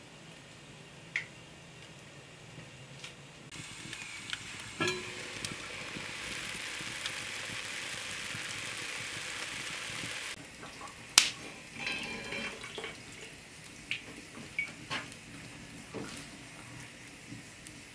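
A whole chicken simmering in a pot of water over a wood fire, a steady bubbling hiss that stops suddenly. Then several sharp clinks and knocks of a utensil against the pot and a bowl as the cooked chicken is lifted out.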